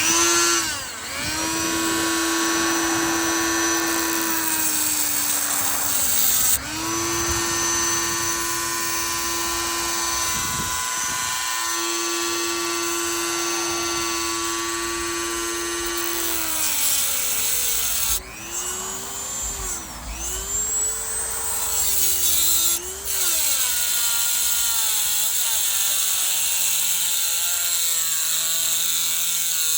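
Dremel rotary tool running at high speed and cutting through a car's lead battery terminal: a steady high whine with a hissing cutting noise. It stops briefly about six seconds in and then restarts. Later the pitch dips and wavers as the tool is pressed into the metal.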